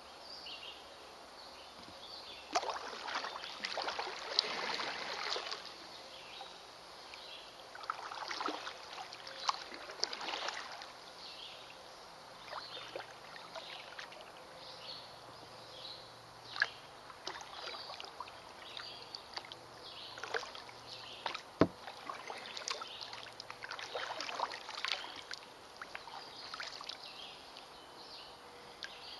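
Kayak paddling: irregular swells of splashing as the paddle blades dip and pull through the water every few seconds, with water trickling off them in between. A single sharp knock sounds about three-quarters of the way through.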